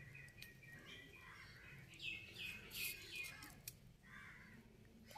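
A bird chirping: a quick run of about four short, high, falling chirps about two seconds in, against a quiet background.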